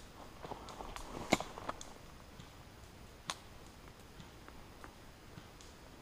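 Footsteps crunching through dry leaf litter and twigs on a forest floor, with a sharp snap about a second in and another single snap about three seconds in.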